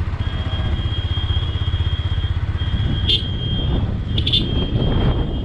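Motorcycle engine running with a fast, even low pulsing, heard from on the moving bike. A thin steady high tone sits above it, with a few short ticks about three and four seconds in.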